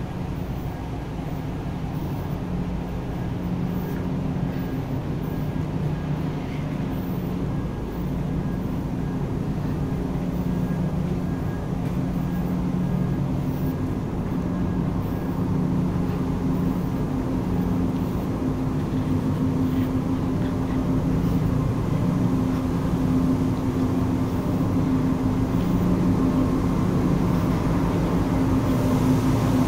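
Steady low drone of a large container ship's engine-room machinery, with a constant hum through it, growing gradually louder.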